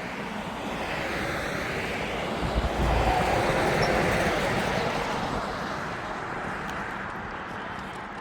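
A vehicle driving past on asphalt, mostly tyre noise, swelling to a peak about three to four seconds in with a low rumble and then fading away.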